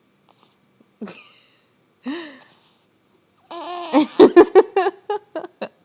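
Two short vocal sounds, then a burst of laughter in quick, loud pulses lasting about two seconds.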